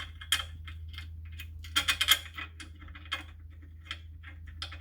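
Small metal bolts clinking and clicking as they are handled and fitted by hand to the clutch, a scatter of sharp clicks with a cluster about two seconds in, over a steady low hum.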